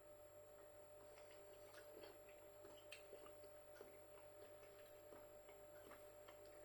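Near silence: faint room tone with a steady low hum and a scattering of small, faint clicks.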